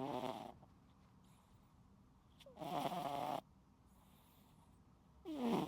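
Domestic cat snoring in its sleep: three snores, each under a second long, about two and a half seconds apart, with fainter breaths between them.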